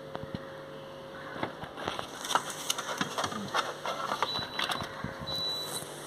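A faint steady hum, then from about two seconds in a scatter of light clicks and taps.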